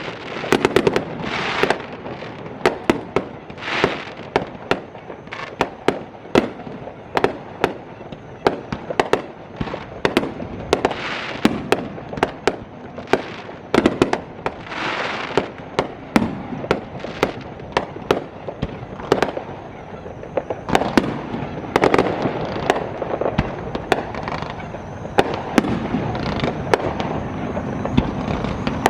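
Fireworks going off in a continuous barrage: many sharp bangs, often several a second, with crackling and fizzing between them.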